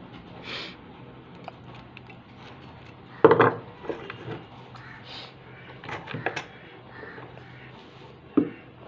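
Pliers and a starter-motor brush plate being handled and set down on a workbench, metal knocking and clinking: a loud knock about three seconds in, a few clinks around six seconds, and another sharp knock near the end.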